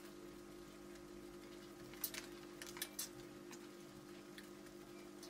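A few faint, sharp clicks and taps bunched together about two to three seconds in, from a plastic syringe being picked up and handled over a partly disassembled film camera body. A steady low electrical hum runs underneath.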